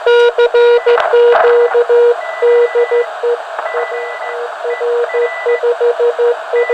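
Morse code (CW) signals on the 40-metre band heard through a uBITX HF transceiver's speaker: one strong, low-pitched station keying dots and dashes, with several weaker stations at higher pitches heard at the same time over band hiss. So many signals get through together because the receive filter is wide for CW.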